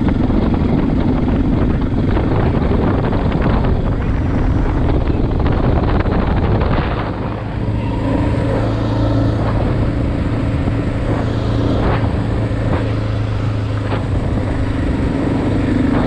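Motorcycle engine running steadily while riding along a gravel road, with road noise from the tyres. The level dips briefly about halfway through, after which the engine's hum is steadier.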